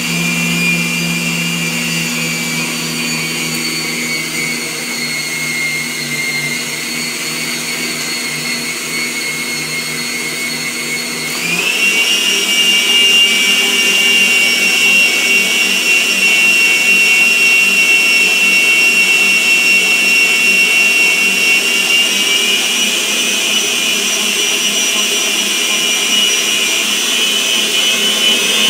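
Philco PHP500 planetary stand mixer beating cake batter, its motor running with a steady whine. About eleven seconds in the whine steps up in pitch and gets louder as the mixer goes to a higher speed.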